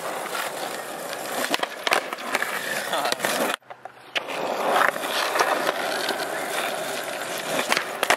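Skateboard wheels rolling over rough asphalt, with sharp clacks of the board's deck and wheels striking the pavement during tricks. The sound drops out abruptly at a cut about three and a half seconds in, then the rolling and clacks resume.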